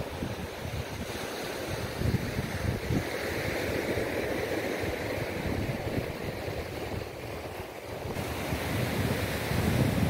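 Small waves breaking and washing up a sandy beach, with wind gusting on the microphone. The wash swells in the middle and then eases off.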